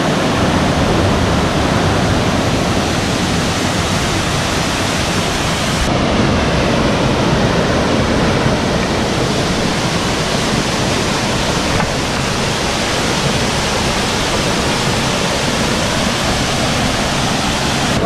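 Steady rush of a small waterfall and a stream spilling over boulders, with a slight change in tone about six seconds in.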